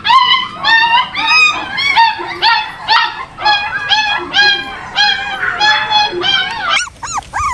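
A puppy yelping and whining over and over, about two high cries a second, with a few longer gliding whines near the end.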